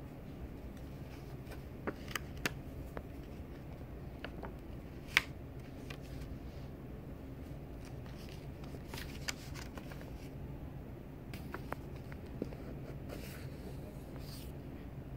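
Paper pages of a handmade junk journal being turned and handled: light rustling with scattered soft clicks and taps, one sharper click about five seconds in, over a steady low hum.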